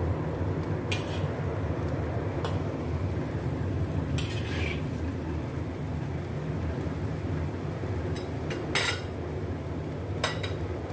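Metal spatula scraping and knocking against a wok as noodles are stir-fried: a handful of separate strokes, one about four seconds in lasting longer, over a steady low rumble.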